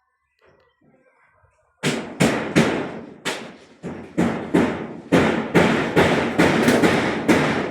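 A run of loud, sharp knocks or bangs, about two to three a second, starting about two seconds in, each with a short ringing tail.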